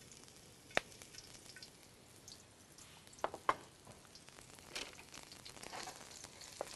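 Chopped garlic and chili frying in a little oil in a wok, a faint steady sizzle, with a few sharp clicks of the utensil against the wok as they are stirred.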